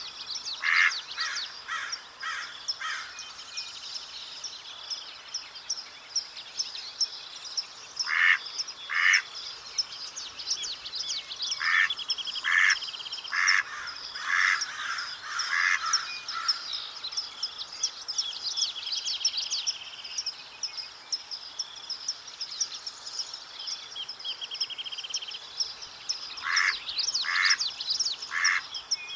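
Mallard quacking in runs of two to six short quacks: a run just after the start, a pair about eight seconds in, a longer run from about twelve to sixteen seconds, and another near the end. Other birds chirp and trill steadily behind the quacks.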